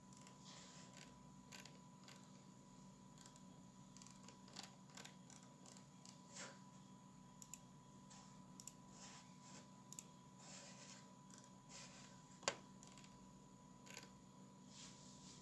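Near silence: a steady faint hum with a thin high tone, and scattered faint small clicks and rustles, one sharper click about twelve seconds in.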